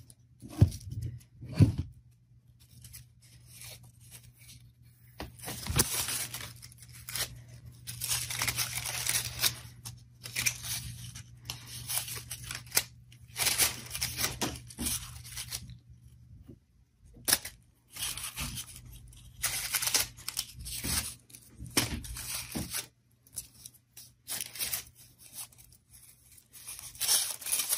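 Crepe paper rustling and crinkling in irregular strokes as a strip is stretched and wrapped around a paper flower's wire stem, with two light handling knocks in the first two seconds.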